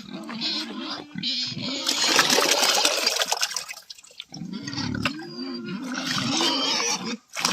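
Liquid pig feed, a slop of water and cooked rice, sloshing and splashing as it is poured into a trough, in two loud spells, while pigs grunt.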